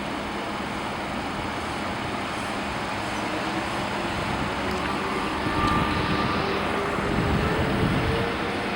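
Steady vehicle noise with a faint engine tone that rises in pitch, growing louder between about five and eight seconds in.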